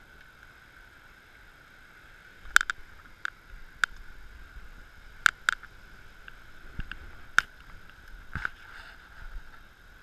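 Sharp clicks and knocks at irregular intervals, about eight in all, over a steady hiss: someone scrambling on foot down a rough forest trail while wearing an action camera.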